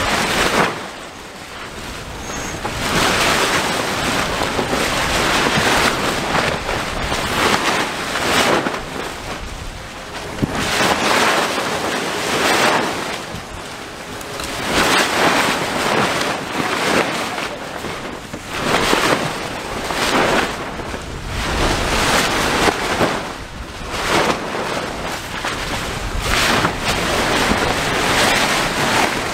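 Sea wash and wind buffeting the microphone while under sail, a rushing noise that swells and eases every few seconds.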